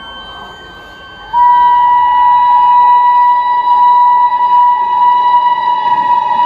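Indian Railways WAP7 electric locomotive's horn sounding one long steady single-note blast. It starts abruptly about a second in and is much louder than the fainter high steady tones before it.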